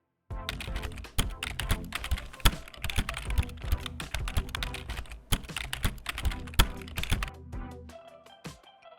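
Rapid, irregular clicking over background music. The clicking stops about seven and a half seconds in, leaving the music.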